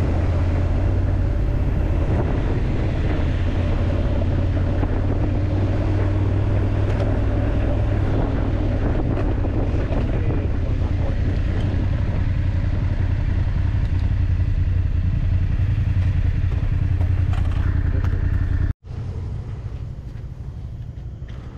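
Motorcycle engine running steadily under way, a low even drone. It breaks off abruptly near the end, and a quieter engine rumble follows.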